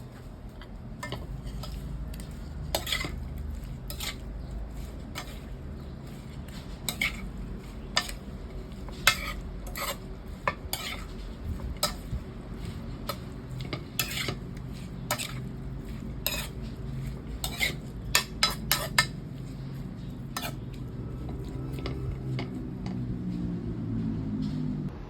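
Utensil clinking and scraping against a dish as food is stirred and mixed, with irregular sharp clicks, several in quick succession past the middle, over a steady low hum.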